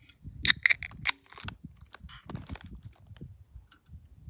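In-shell peanuts being cracked open by hand: a few sharp cracks in the first second and a half, then softer rustling and handling of the shells.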